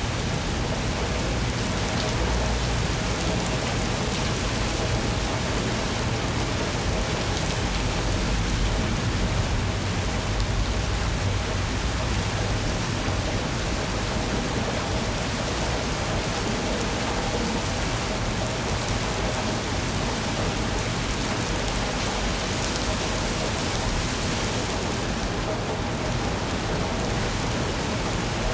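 Steady, unbroken rainfall with an even hiss, and a low rumble underneath that swells slightly midway.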